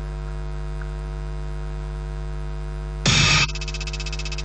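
Steady electrical mains hum; about three seconds in, a short loud burst of noise lasting under half a second, the struck-drum sound effect of the animation, followed by a steady pulsing buzz.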